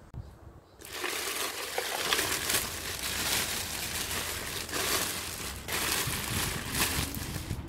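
Thin plastic packaging bag crinkling and rustling as hands pull it open and unwrap it. The crinkling starts about a second in and goes on with irregular louder crackles.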